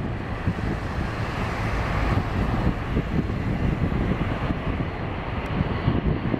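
Twin-engine jet airliner at takeoff thrust during its takeoff roll, rotating near the end: a deep, steady jet roar.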